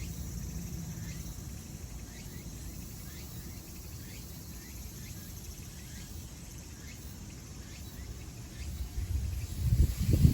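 Outdoor ambience with faint short chirps repeating every half second to a second. From about nine seconds in, wind buffets the microphone with loud rumbling gusts.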